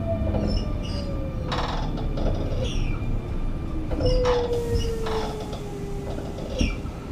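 Electric whine of the Sotetsu 8000 series' Hitachi IGBT-VVVF inverter and traction motors, falling steadily in pitch as the train slows under braking. About four seconds in, the whine steps to a new tone that keeps falling. Wheels clack over rail joints several times beneath the running noise.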